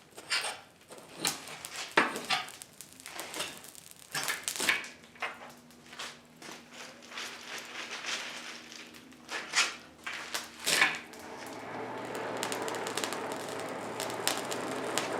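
Irregular knocks and clatter of metal tools being handled at a blacksmith's forge. About eleven seconds in, a steady rushing hum starts and holds, typical of the forge's air blower running to feed the fire.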